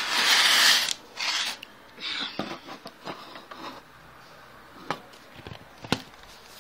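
Close handling noise of a LEGO-brick model: a loud rustling rub in the first second, shorter rustles after it, then two sharp clicks about a second apart near the end.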